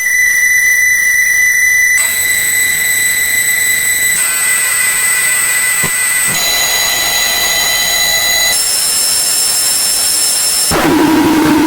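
Harsh electronic noise section of an experimental track: a steady hiss under thin, high whistling tones that jump to new pitches about every two seconds. A lower buzzing tone comes in near the end.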